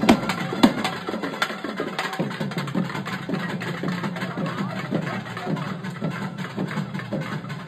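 Festival drumming: a few loud drum strokes in the first second, then softer strokes about once a second, each dropping in pitch, over a steady low hum.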